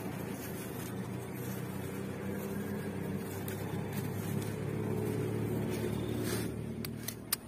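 Steady engine drone with a low, even pitch, growing slowly louder, then cutting off about six seconds in.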